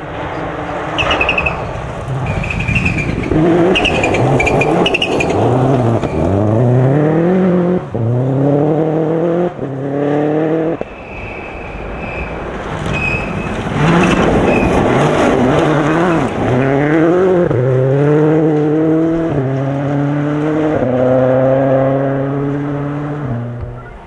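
Rally cars at full throttle on a gravel stage, one after another, each accelerating hard through the gears with the engine note climbing and then dropping at every upshift. Short high whistles sound over the engines at times.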